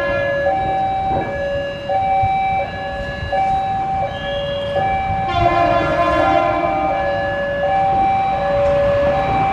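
CC201 diesel-electric locomotive's air horn sounding two notes in turn, a higher and a lower, switching back and forth under a second apart. A little past halfway, several notes sound together for about a second, the loudest part.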